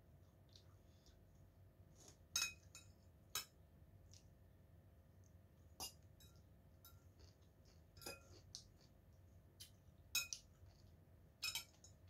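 Metal spoon clinking against a ceramic bowl while eating: about half a dozen short, sharp clinks at irregular intervals, with a faint steady hum between them.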